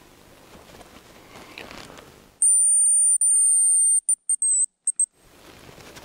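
A male hazel grouse's whistled song, very high-pitched: a long thin whistle with one short break, then a quick run of short notes falling in pitch. The surrounding sound drops out completely while it plays.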